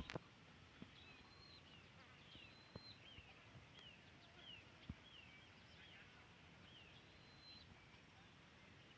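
Faint, high animal chirps repeating about twice a second, each a short falling sweep with the odd held note, over a quiet outdoor background. A few soft clicks sound in the first five seconds.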